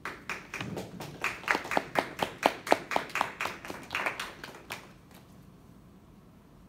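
A small group of people clapping, beginning at once and fading out after about five seconds.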